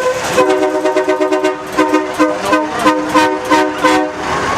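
Train horn on a tow truck sounding a chord: one held blast of about a second, then a quick run of short toots, about three a second, that stops near the end.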